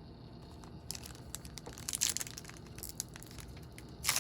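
Foil wrapper of a trading-card pack crinkling as it is handled, in short crackly bursts starting about a second in, loudest near the end.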